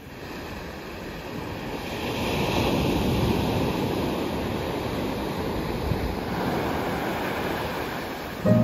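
Ocean surf washing onto a sandy beach: a steady rushing of breaking waves that builds over the first couple of seconds and then holds.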